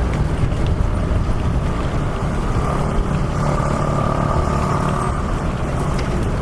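Road traffic on a busy city street: a steady low rumble of passing cars, with one vehicle's engine tone standing out for a couple of seconds midway.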